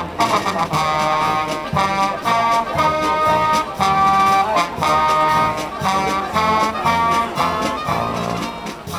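Military brass band with sousaphone and trumpets playing a tune outdoors: held brass chords over a bass line, moving in short phrases.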